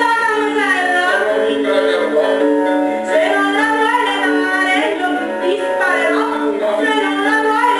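A woman singing a Neapolitan song over instrumental accompaniment. The sound is thin and tinny, with no bass or top.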